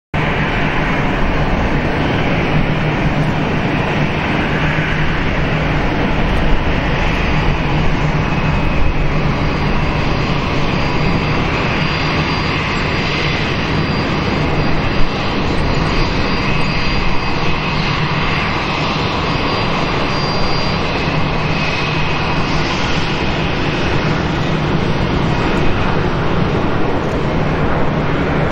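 Boeing 737-500's CFM56-3 turbofan engines running as the airliner touches down and rolls out on the runway. It is a steady broad rush with a low hum and a thin high whine.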